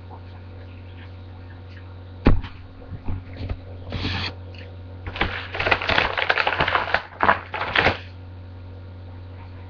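A sharp knock about two seconds in, then crinkly rustling of a cookie bag being handled, in short bursts and then densest from about five to eight seconds in, over a steady low electrical hum.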